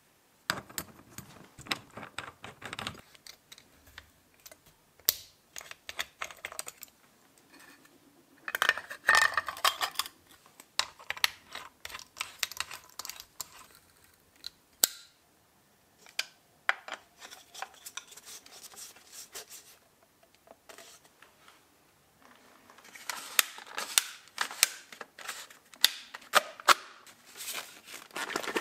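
Hand-handled angle grinder parts clicking and tapping: a steel flange nut and cut-off disc being fitted onto the grinder's spindle, with irregular sharp clicks and rattles, a dense cluster about nine seconds in and another over the last five seconds. The motor is not running.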